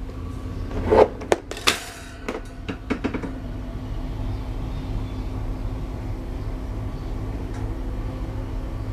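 A 12-inch Panasonic table fan running with a steady motor hum. During the first three seconds a run of knocks and clatter as the fan is handled, then only the even hum.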